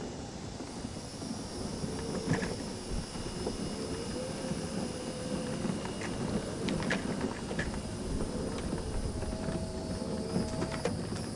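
Electric mobility scooter's motor whining steadily as it drives over grass and leaf-covered ground, its pitch wavering a little. Scattered clicks and knocks come from the bumpy ride.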